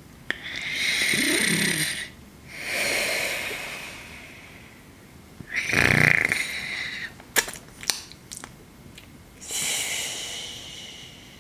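A person snoring: several long, drawn-out snoring breaths, a loud snort about six seconds in, then a few sharp mouth clicks and smacks before one more snoring breath near the end.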